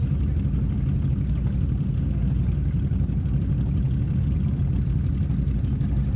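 ATV engine idling steadily, a constant low drone.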